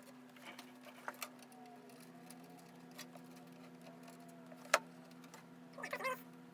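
Scattered small clicks and ticks of computer parts and connectors being handled, with one sharp click about three-quarters through, over a steady low hum. A cat meows near the end.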